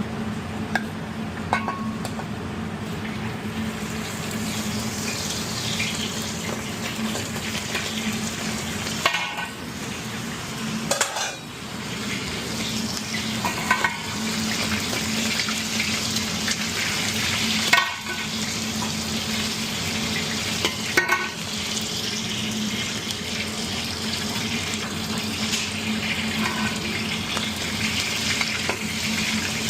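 Food sizzling as it is stir-fried in a pan, the sizzle building up over the first few seconds, with a utensil knocking and scraping against the pan now and then. A steady low hum runs underneath.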